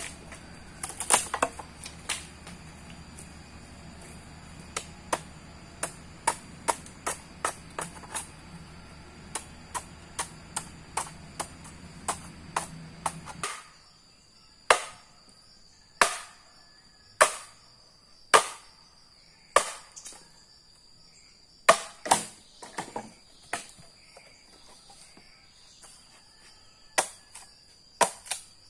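Repeated sharp chopping blows of a blade on wood or bamboo. At first they come quickly, about two a second, over a low hum. About halfway through the hum drops away and the blows come louder and slower, about one a second. A thin steady high-pitched tone runs underneath.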